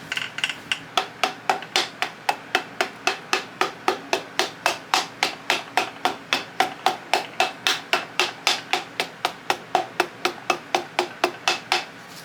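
A piston being tapped down into a cylinder bore of a Honda B18B engine block with a hammer: a steady run of light, sharp taps, about four a second.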